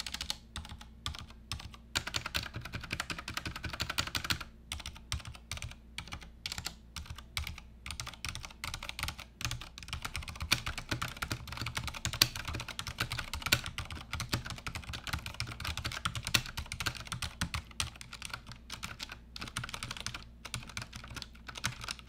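Typing on a Fnatic miniStreak TKL mechanical keyboard with Cherry MX Silent Red switches and ABS keycaps: a fast, steady run of soft, quiet keystrokes, the switches' rubber dampers muting the bottom-out and return, with a few brief pauses.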